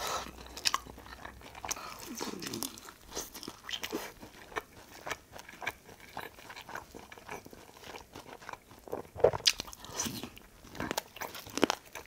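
Close-miked biting and chewing of sauced Korean fried chicken, with irregular crisp crunches of the coating throughout.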